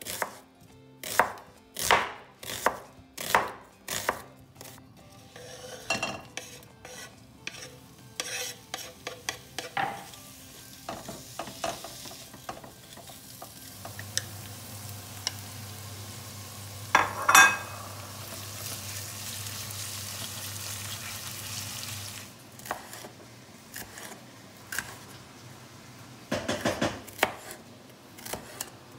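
A chef's knife chopping an onion on a wooden cutting board, sharp strikes about every two-thirds of a second. Then onions frying in a wok, with a steady hiss, a low steady hum and one loud clatter. Then the knife slicing a green bell pepper on the board, with a quick run of strikes near the end.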